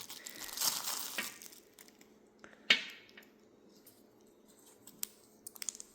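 Unboxing a new multitool: a short rustle of packaging, then a single sharp knock of the tool being handled about three seconds in, and a few faint clicks near the end.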